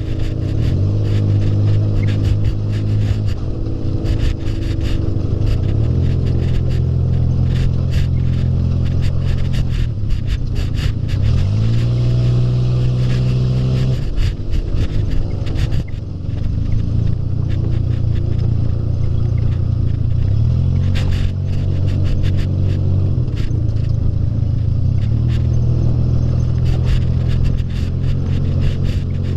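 Off-road buggy engine running while driving. Its pitch holds steady for stretches and glides to a new level about eleven seconds in and again about twenty-one seconds in, with frequent knocks and rattles.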